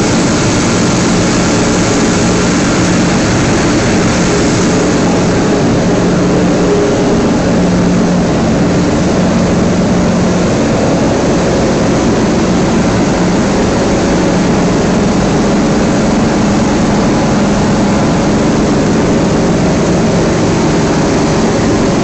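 Plastic film crusher on a PE film washing line running steadily and loudly as it shreds wet PE film, a continuous machine drone with a steady low hum.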